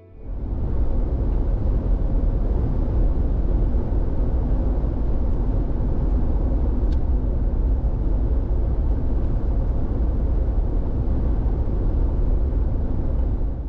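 Steady rumbling road and running noise of a vehicle on the move, even throughout with no revving.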